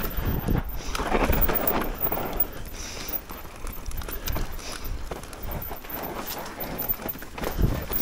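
Mountain bike rolling down a dirt singletrack: tyres rumbling and crunching over the ground, with the bike rattling and knocking over bumps, one of the sharpest knocks near the end.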